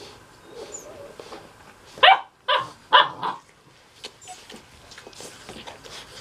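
Mastiff puppy barking: three short barks about two seconds in, roughly half a second apart, followed by a softer fourth.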